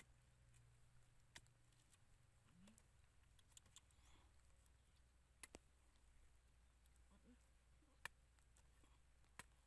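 Near silence with a steady low hum and a few faint, sharp clicks a second or two apart.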